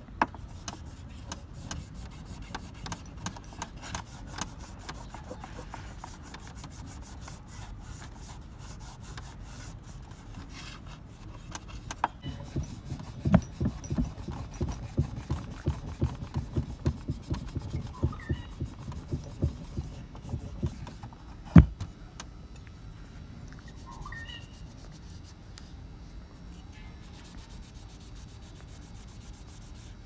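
A cloth rubbing and polishing the plated metal frame of a Spark L gas igniter against a wooden bench, with small handling clicks. In the middle it turns into a run of soft knocks, two or three a second, as the piece shifts on the wood, and a single sharper click follows.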